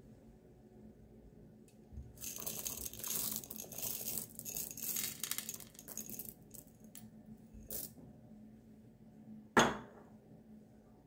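Chocolate chips poured out over oatmeal cookie dough in a ceramic bowl: a dense crackling rattle for about four seconds, with a few loose ticks after it. Near the end comes one sharp knock, the loudest sound.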